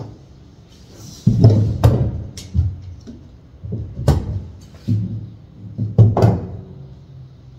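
Woollen dress fabric being turned over and spread out by hand on a table: rustling, with a series of irregular soft thumps and knocks on the tabletop.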